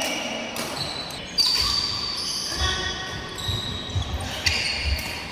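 Badminton players' shoes squeaking and feet thudding on an indoor court floor.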